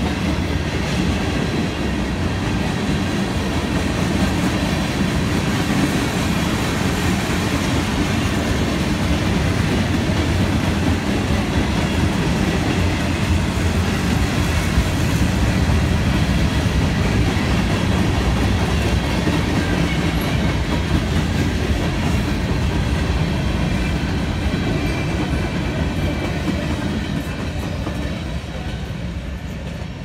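Cars of a mixed freight train (covered hoppers, tank cars and boxcars) rolling past on steel wheels over the rails: a steady, loud rumble that fades over the last few seconds as the train moves away.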